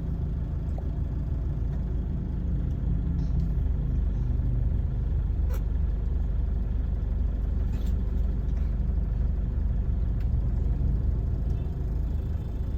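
Steady low rumble of a running vehicle, with a few faint clicks.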